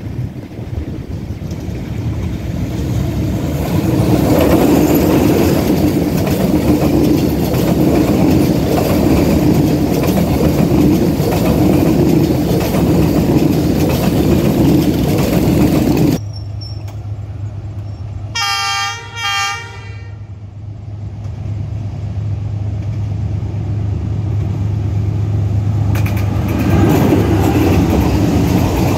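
A train running past with a loud, steady rumble of wheels on the rails. The rumble cuts off abruptly about halfway through. About two seconds later the train's horn gives two short blasts over a low engine drone, and the rumble of a train builds up again near the end.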